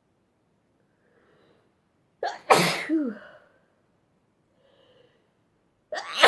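A girl sneezing twice, each sneeze led by a faint intake of breath and ending in a short falling voiced tail; the second sneeze comes near the end.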